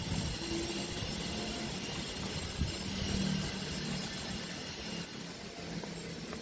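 A low, steady engine-like hum that fades in and out, over a rumbling background.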